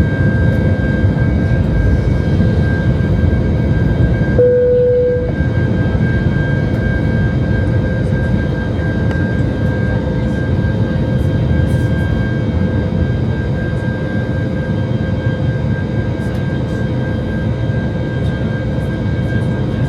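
Airbus A320's IAE V2527-A5 turbofan engines at take-off thrust in the initial climb, heard from inside the cabin: a steady, loud roar with a constant high whine. About four seconds in the roar dips for roughly a second while a single steady tone stands out.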